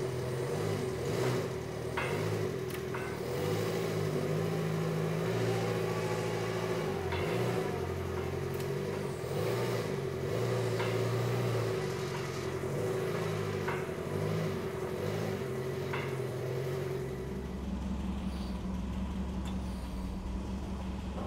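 An engine running under changing load, its note shifting up and down, with scattered metal clanks. About three-quarters of the way through the sound changes to a deeper, lower hum.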